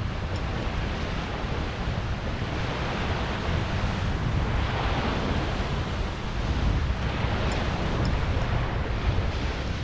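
Ocean surf washing on the shore, swelling and easing a couple of times, over a steady low rumble of wind buffeting the microphone.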